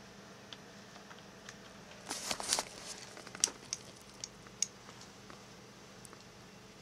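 Computer keyboard keys being pressed: a short clatter of keystrokes about two seconds in, then four or five separate sharp key clicks. A steady low hum from the running PC sits underneath.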